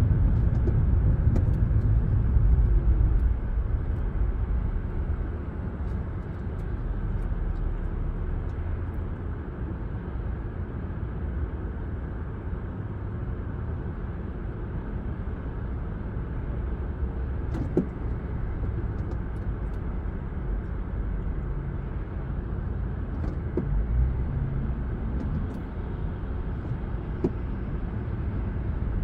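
Car cabin noise while driving: a steady low rumble from the engine and tyres, a little louder in the first few seconds, with a few faint clicks.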